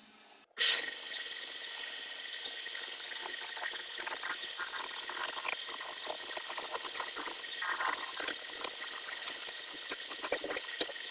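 Wood lathe running while a turning chisel cuts and scrapes the spinning wood: a steady high whine under rough, uneven scraping. It starts abruptly about half a second in.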